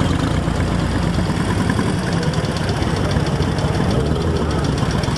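Vintage three-wheeled cyclecar's exposed front-mounted V-twin engine running steadily at low revs as it creeps along, with a fast, even, lumpy beat.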